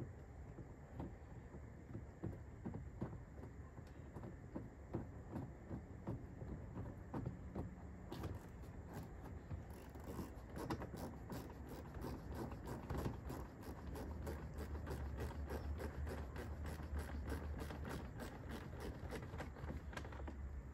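Hand ratchet clicking in quick, even strokes as a bolt is run into a truck's door panel, about three clicks a second, starting about eight seconds in after some faint handling noise.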